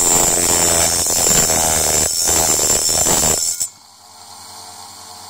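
The grinding wheel of a Berlan TCT saw blade sharpener grinding a tungsten-carbide saw tooth: a loud grinding with a wavering whine. It stops abruptly about three and a half seconds in, leaving a steady, quieter hum of the running grinder.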